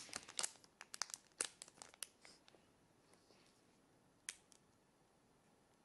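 Foil wrapper of a trading-card booster pack crinkling in the hands as it is opened: a quick run of faint crackles over the first two and a half seconds, then two lone crackles a little past four seconds.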